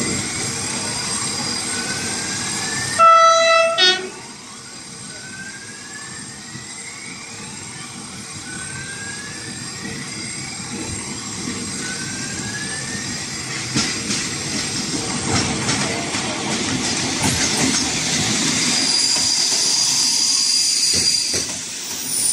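Diesel railcar approaching with its engine running and a faint whine that rises in pitch every few seconds. About three seconds in, it sounds two loud horn blasts. Later its wheels clack over rail joints and points as it rolls in, and near the end a high steady squeal sounds as it slows.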